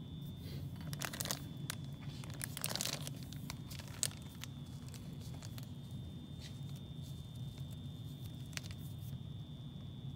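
Plastic zip-top bag crinkling as it is handled, densest in the first three seconds, then a few scattered crackles. A steady low hum and a faint high-pitched tone run underneath.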